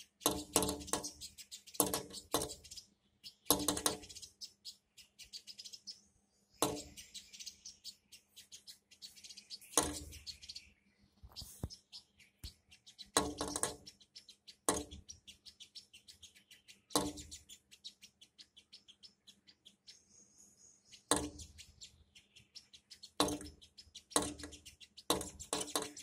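A sunbird pecking at its own reflection: its beak taps the window glass in quick clusters of sharp clicks every one to three seconds, with high chirps between them. A faint steady hum sits under it.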